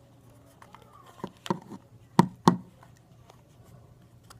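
A few sharp clicks and taps from handling a hard plastic flip-phone candy toy, the two loudest close together about two seconds in.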